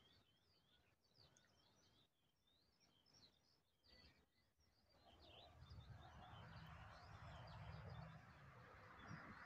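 Faint songbirds chirping and twittering. About five seconds in, a louder low rushing rumble rises and carries on under them.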